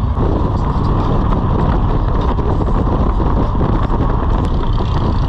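Motorcycle riding at highway speed from the rider's seat: a steady engine drone mixed with wind and road noise, starting abruptly just at the start.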